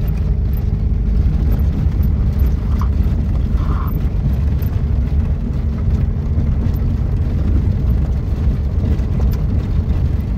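Fiat Uno driving on a rough rural road: a steady low rumble of engine and road noise.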